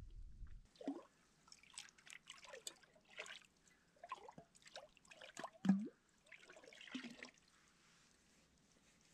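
Water gurgling and dripping as a container is dipped into a lake to fill it: a string of small splashes and drips, with one louder gurgle a little past halfway.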